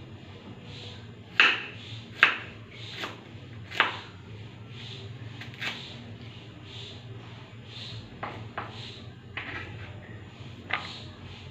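Kitchen knife cutting through ingredients onto a cutting board in separate, unevenly spaced strokes, about nine in all, the loudest in the first four seconds. A steady low hum runs underneath.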